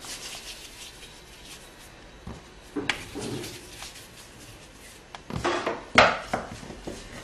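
Scattered light knocks and rubbing from a wooden rolling pin and floured hands working small pieces of dough on a board, with the sharpest knock near the end.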